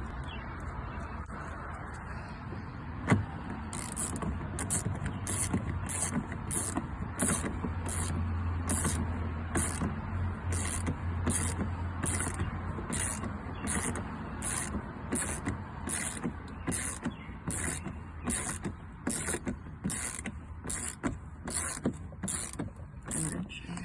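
Hand ratchet wrench driving in the door-panel bolts: a steady run of short ratcheting strokes, about one and a half a second, each back-swing clicking the pawl.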